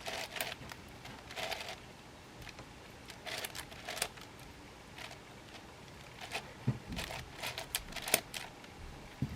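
Layers of a 9x9 puzzle cube being turned by hand: short runs of light plastic clicks in irregular groups, with brief pauses between moves.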